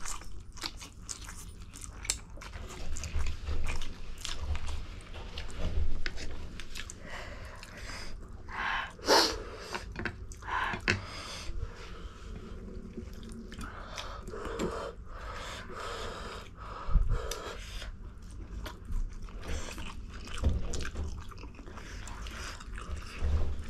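Close-up eating sounds of spicy ramen noodles and prawns being chewed and bitten, with many short wet mouth clicks and smacks and a few louder bites.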